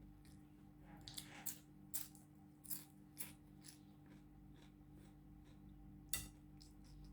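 Faint, irregular sharp crackles and crunches of crispy rugag flatbread being broken and bitten, about half a dozen spread over the seconds, over a steady low hum.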